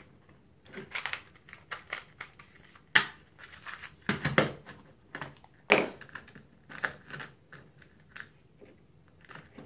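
Plastic housing and metal contact parts of a mains isolator switch clicking, rattling and knocking as it is handled and taken apart by hand. The clicks come irregularly, the sharpest about 3 seconds in and again near 6 seconds.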